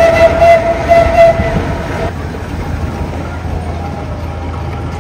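Steam traction engine's whistle blowing one long note that stops about two seconds in, over a steady low rumble of the passing vehicles.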